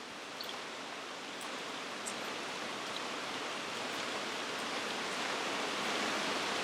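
Steady rainfall as an even hiss, growing gradually louder, with a few faint, short high-pitched sounds at the start.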